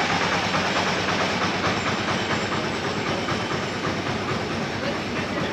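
A motor vehicle's engine running close by, a steady rattling mechanical noise.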